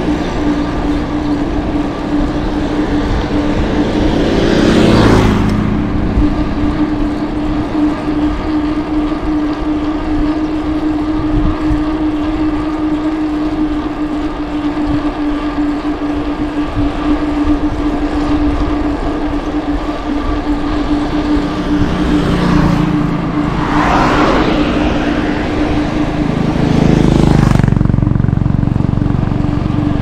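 Steady road and wind noise from a bicycle ride along a road, with a motor vehicle passing about five seconds in and more vehicle noise swelling and fading between about 22 and 28 seconds.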